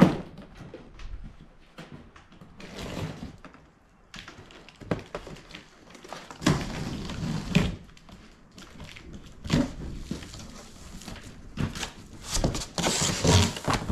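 Cardboard engine box being cut open by hand: a sharp snap at the start as a plastic shipping strap is cut, then scattered scrapes, rustles and knocks of cardboard. The louder cardboard rustling near the end comes as the top flaps are pulled open.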